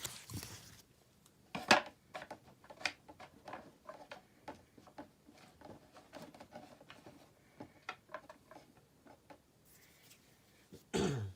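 Pokémon trading cards handled on a table: a string of light clicks and taps as cards are picked up, sorted and set down, with a short rustle at the start. A brief, louder sound that falls in pitch comes near the end.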